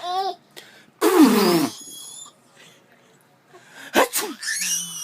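A man sneezes once, loudly, about a second in: a falling "achoo". Short high-pitched squeals and giggles from a baby come at the start and again near the end.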